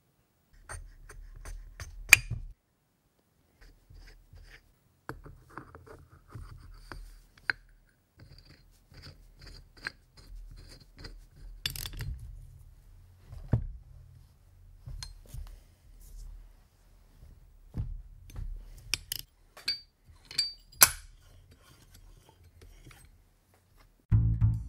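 Metal parts and hand tools clinking, clicking and scraping as a Piaggio scooter variator is fitted onto the engine's crankshaft, with a few sharper metal clinks among scattered small clicks. Music starts right at the end.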